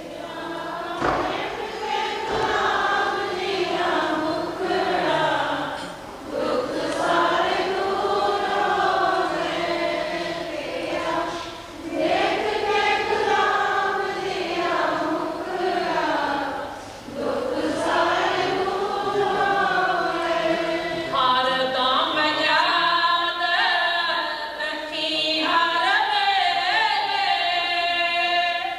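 A group of voices singing a slow devotional chant in long drawn-out phrases, with short breaths between phrases every few seconds.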